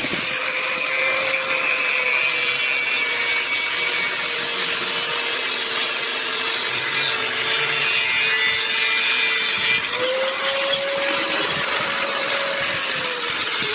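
Power tool motor running steadily under load; its pitch rises slightly about ten seconds in.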